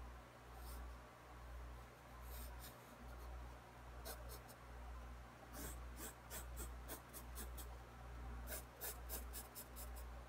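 Pencil scratching on sketchbook paper in runs of short, quick strokes, busiest in the second half, over a faint low, pulsing hum.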